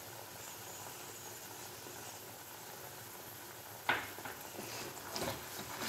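Faint, even sizzling of bread halwa simmering in ghee in a non-stick pan as the ghee separates from the mixture. A brief sharp sound about four seconds in, and a few smaller ones near the end.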